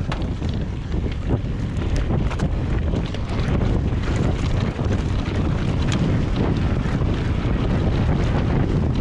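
Wind rushing over the microphone of a downhill mountain bike racing down a dirt trail, with steady tyre noise and scattered sharp knocks and rattles from the bike over rough ground.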